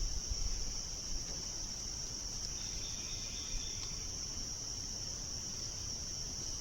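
Steady chorus of crickets, a continuous high-pitched trill that doesn't let up, with a few faint low knocks in the first second.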